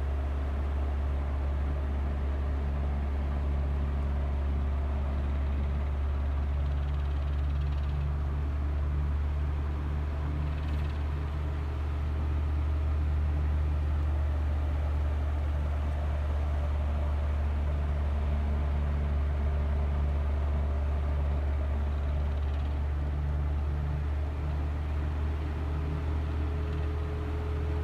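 Vintage Mimar MP-416 16-inch table fan running steadily on low speed. Its motor gives a deep electrical hum under the rush of air from the Torrington blade, swelling slightly about twelve seconds in.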